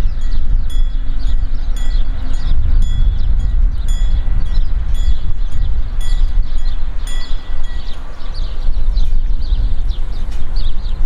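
Train passing close by: a steady low rumble, with metallic clicks and short ringing squeals from the wheels on the rails at a regular beat of about one every 0.7 seconds.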